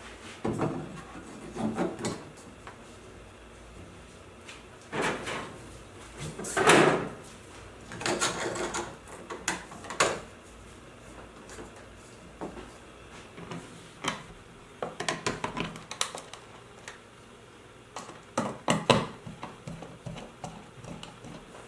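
Hollow plastic knocks, scrapes and clicks, coming in irregular clusters with pauses, as 3D-printed ABS parts are pushed into place on a molded plastic blast cabinet and screws are put in by hand.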